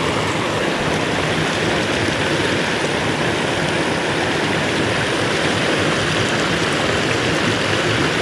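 Floodwater gushing over a small dam and down a swollen creek: a steady, loud rush of water.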